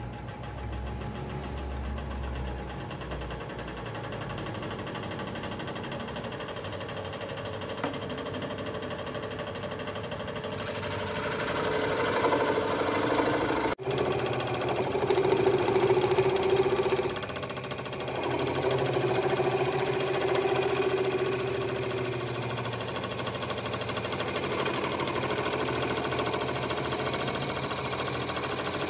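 Makita scroll saw running, its reciprocating blade cutting through a painted wooden board. The cutting grows louder and more uneven about halfway through.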